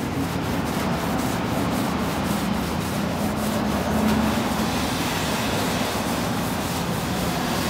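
A damp cloth rubbed by hand back and forth over a painted aircraft engine cowling, buffing in polish with a steady scrubbing swish. A low steady hum runs underneath.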